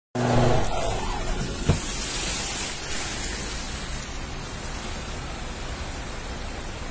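A car driving through floodwater: a steady rush of water spray mixed with the car's running noise. It is louder for the first four or five seconds, then settles to a quieter even rush.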